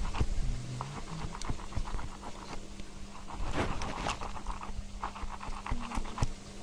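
Watermelon flesh being mashed to juice inside its hollowed rind with a rod: irregular wet squelching and scraping strokes.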